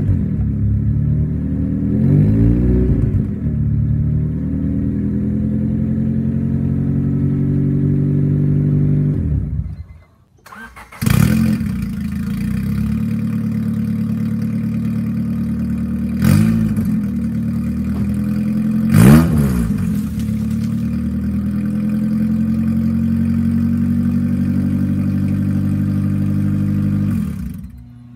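A 1996–2000 Honda Civic's D16 four-cylinder idles and is blipped once through an open exhaust with no muffler. After a short break about ten seconds in, it runs again with only the header and downpipe fitted, idling steadily with two quick revs, and cuts out near the end.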